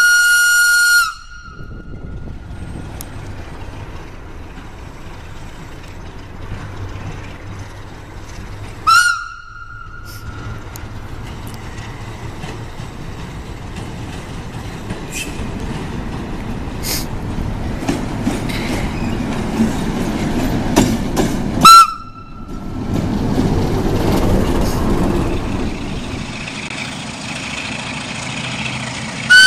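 Diesel locomotive pulling a passenger train, its engine running under the rolling noise of the train. The horn sounds three single-tone blasts: one at the start, a second about 9 seconds in and a short one near 22 seconds. A run of clicks from the wheels comes in the later part.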